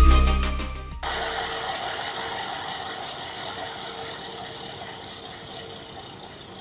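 Electronic music stops abruptly about a second in. Then the freehub of an NS Bikes RAG 2+ gravel bike's spinning rear wheel gives a rapid ratcheting buzz of pawl clicks as the wheel coasts, fading slowly as it spins down.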